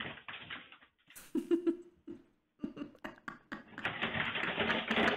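Security-camera audio of a dog blundering into a small side table on a wooden floor in the dark, with scattered knocks, then a longer stretch of clatter and scrabbling as the table tips over. The sound is thin and dull, heard through the camera's microphone.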